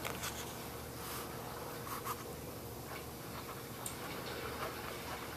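Steady room hum with faint scratching and a few scattered light clicks.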